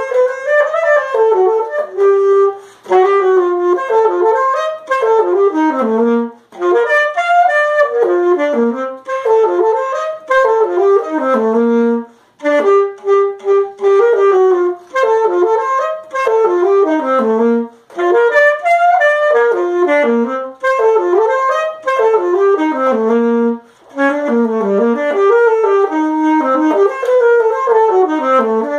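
Alto saxophone played solo without accompaniment: a quick melody of running, rising and falling notes in short phrases, with brief pauses for breath between them.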